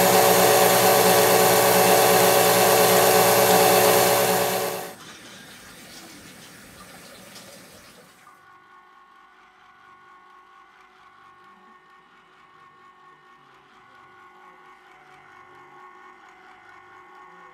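Electric mixer running at speed, its twin beaters whipping a liquid ice cream base with a steady whir and sloshing, cutting off sharply about five seconds in. A faint low hum is left after that.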